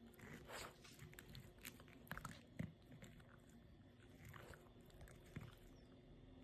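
A mame shiba dog crunching and chewing ice cubes: faint, irregular crunches, the loudest a little over halfway through.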